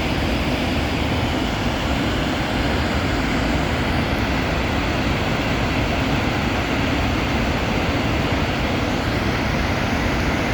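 Steady, loud roar of the Upper Falls of the Genesee River, about 70 feet tall, with the river running extra high.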